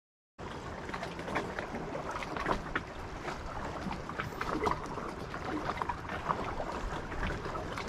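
Silent for about half a second, then lake water lapping at the shore with wind on the microphone, full of small irregular clicks and splashes.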